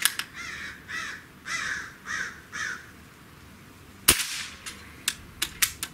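A crow cawing about five times in the first three seconds. About four seconds in comes a single shot from a .25-calibre AEA Challenger PCP air rifle, a clean report with no ping, followed by a quick run of light clicks from the rifle's action.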